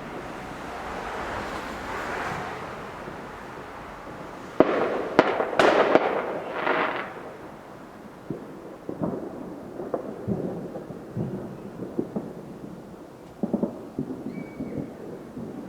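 Neighbourhood New Year's Eve fireworks going off. A sharp bang about four and a half seconds in starts a burst of several quick bangs and crackling that lasts about two seconds and is the loudest part. Scattered single pops follow, over a rumbling background.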